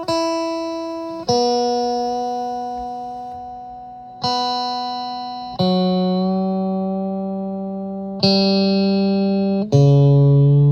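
Freshly strung 1979 Fender Stratocaster electric guitar being tuned. Single open strings are plucked one at a time and left to ring, about six plucks that work down from the high strings toward the low ones.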